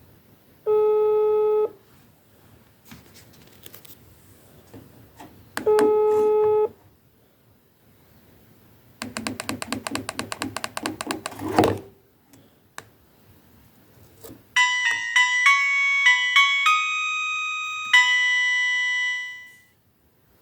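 Maxcom phone playing its tones: two one-second beeps about five seconds apart, then a rapid rattling buzz for about three seconds, then a short electronic ringtone melody of stepped notes that ends on a held note.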